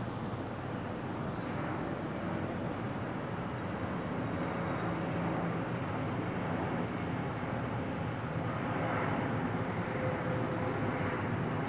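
Steady, even rumble of a distant jet airliner in flight, over the constant hum of city traffic.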